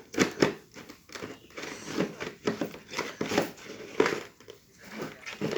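Irregular crinkling and rustling handling noises, broken by a string of short sharp clicks and knocks.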